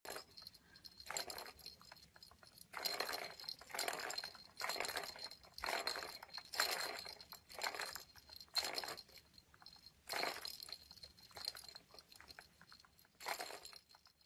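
A small plastic ball rolling and rattling around the enclosed track of a round cat scratcher toy, in a string of short rushes about once a second as it is pushed along.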